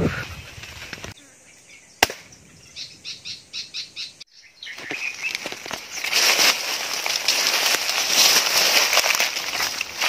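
A sharp click, then a short run of about seven quick high pulses. From about five seconds in, dry leaves, twigs and undergrowth rustle and crackle loudly and unevenly as someone pushes through the brush.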